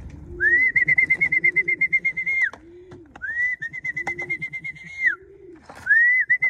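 A trilled whistle blown three times, each call about two seconds long, to call circling racing pigeons down to the loft. Pigeons coo underneath.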